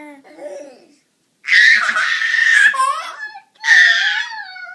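Toddler laughing: a few small voice sounds, then two loud, high-pitched bursts of laughter, each about a second long.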